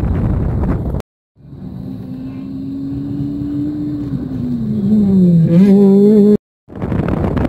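Peugeot 208 rally car's engine at high revs on a test run, growing louder as it approaches, dipping in pitch as the driver lifts off, then rising again under acceleration. The sound breaks off into silence twice, about a second in and near the end.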